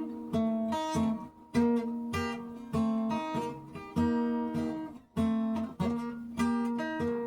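Acoustic guitar fingerpicked in Piedmont blues style in E, plucked bass and treble notes ringing and decaying between strong strokes about once a second.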